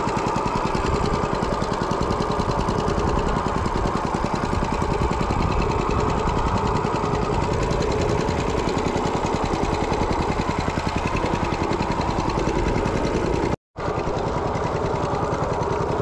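Small fishing boat's inboard engine running steadily with a fast, even chug. The sound drops out for a split second near the end and then resumes.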